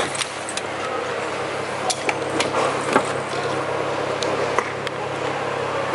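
Steady vehicle traffic noise with scattered sharp clicks and knocks from a wheeled suitcase being rolled and handled on concrete pavement.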